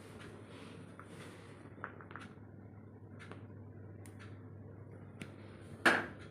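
Quiet room tone with a steady low hum, scattered light clicks, and one sharp knock near the end.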